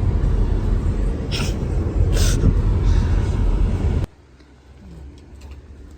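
Loud, steady low rumbling noise with two short hisses, cutting off abruptly about four seconds in to a much quieter background.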